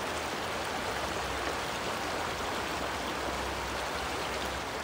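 Shallow stream running over a stony riffle: a steady rush of water.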